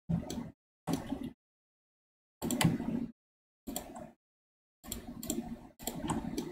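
Desk noise from computer mouse and keyboard use picked up by the microphone: six short bursts of clicking and rustle, each cutting in and out abruptly with dead silence between.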